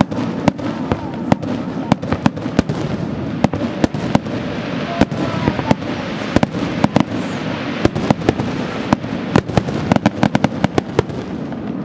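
Aerial fireworks shells bursting in a rapid, irregular barrage of sharp bangs, many coming in quick clusters, over a steady rush of noise between the reports.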